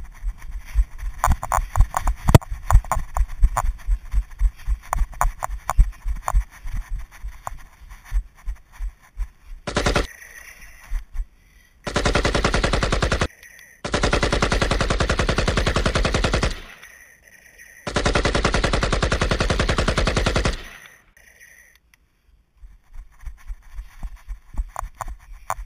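Edited-in automatic gunfire sound effects, in the manner of an AK-47, firing in rapid bursts. Near the middle come three long unbroken strings of very fast fire, each a few seconds long, and scattered shots return near the end.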